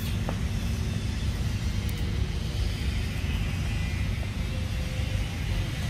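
A steady low rumble with no distinct events, most of its energy deep in the bass, and a faint high hiss above it.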